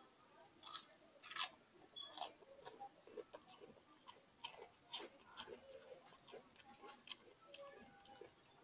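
A person chewing and crunching food close to the microphone: irregular crisp crackles and mouth clicks, loudest in the first two seconds or so.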